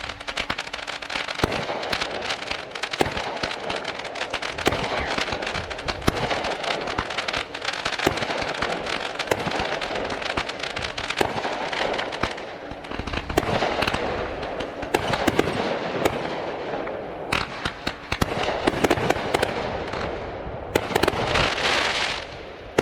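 Fireworks going off in a dense, continuous barrage of rapid bangs and crackling, many overlapping, with a hissing rush near the end.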